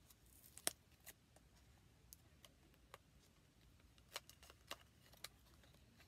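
Small blind-box pin packaging being opened and handled with the fingers: a scattering of soft crinkles and small sharp clicks, the sharpest one under a second in and a few more toward the end.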